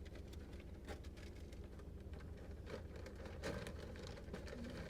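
A takeout sandwich wrapper being handled and opened up, giving scattered light crinkles and taps over a low steady hum.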